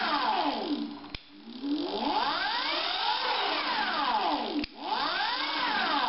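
OSET electric trials bike's motor whining up and falling back in pitch as the throttle is twisted and released, three times over, with a sharp click between runs.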